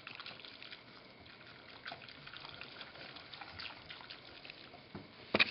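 A silicone whisk stirring a thin liquid in a pot, marshmallow root tea with guar gum being whisked in, with light sloshing and faint ticks. A sharp tap sounds near the end.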